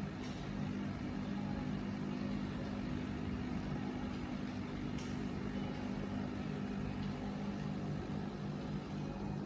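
Aquarium air pump humming steadily, with two air stones bubbling in the tank water.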